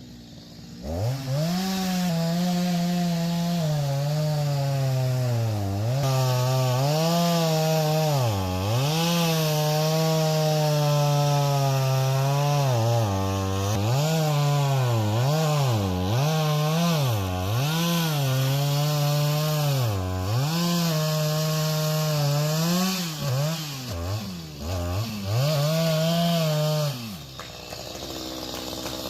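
Two-stroke chainsaw cutting through oak wood at full throttle. Its engine pitch repeatedly sags as the chain bites into the wood and climbs back as the load eases, with many quick dips toward the middle. The saw's engine drops away near the end.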